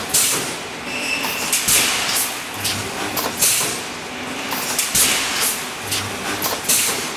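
Pneumatic wire mesh welding machine cycling as it welds ribbed wire into mesh: repeated short bursts of air hiss, often in pairs, about every second and a half, with a brief low hum about every three seconds.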